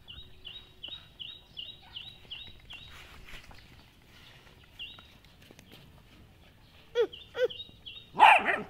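Young dogs at play: two short yelps falling in pitch about seven seconds in, then a louder, harsher yelp just before the end. Behind them a bird chirps over and over, about three short high calls a second.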